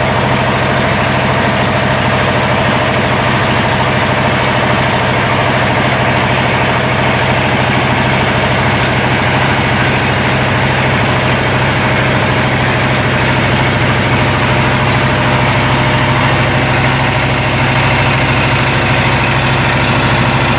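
Motorboat engine running loud and steady with a constant low hum, heard from on board.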